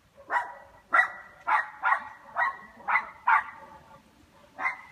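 A dog barking repeatedly: about eight sharp barks roughly half a second apart, with a short pause before the last.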